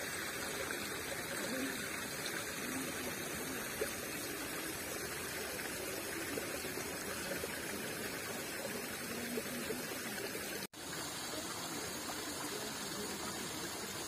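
Steady rush of running water, an even hiss with no separate splashes, which drops out for an instant about ten and a half seconds in.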